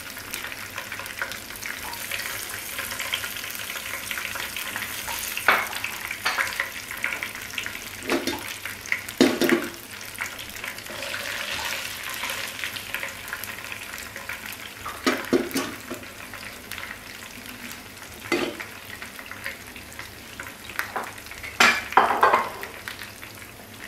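Whole spices (green cardamom pods, bay leaf, cinnamon and cloves) sizzling in hot oil in a frying pan on very low heat. A steady sizzle runs throughout, and a spatula stirring them knocks and scrapes against the pan several times, loudest near the end.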